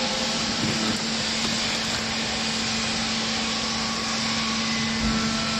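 Vertical hydraulic baler's power unit (electric motor and hydraulic pump) running with a steady hum and even noise.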